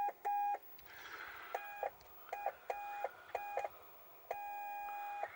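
Ten-Tec Argosy transceiver's CW sidetone: a single steady beep keyed on and off in Morse-style short and long tones, ending with one long tone about a second long. The sidetone is working again after a repair.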